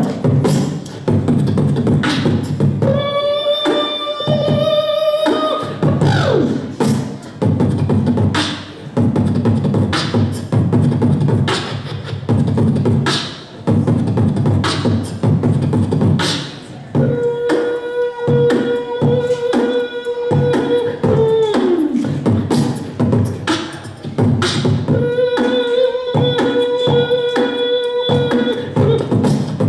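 Human beatboxing into a handheld microphone over a PA: a steady vocal drum beat of kick thumps and snare and hi-hat clicks. Three long buzzing notes are held over the beat, about three seconds in, midway (this one sliding down at its end) and near the end.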